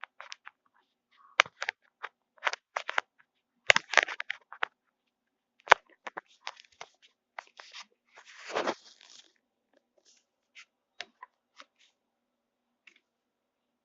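A dishwasher tablet's plastic wrapper being handled and torn open: a string of short crackles and taps, with one longer rustle a little past halfway.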